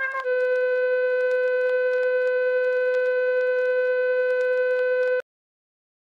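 A steady electronic alert tone, one held pitch with a reedy edge, with faint crackle over it. It lasts about five seconds and cuts off abruptly.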